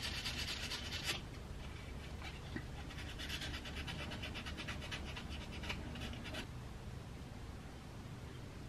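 Hand scrubbing of the blackened copper commutator on a 1930s/40s Frigidaire 1/2 HP repulsion-induction motor armature: rapid back-and-forth rubbing strokes, in a short spell at the start and a longer one from about three to six seconds in. A steady low hum runs underneath.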